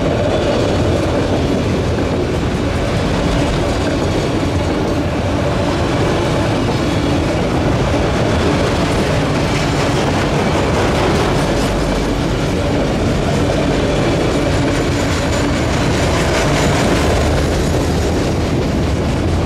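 Freight train of autorack cars rolling past close by, a steady sound of steel wheels on the rails, with clicking over the rail joints.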